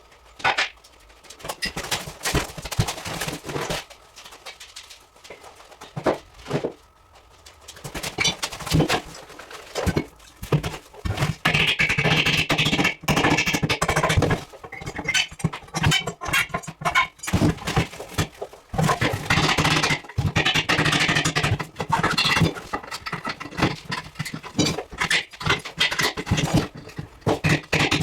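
Irregular clatter of knocks, clicks and scraping, sparse at first, then dense and steady from about a third of the way in.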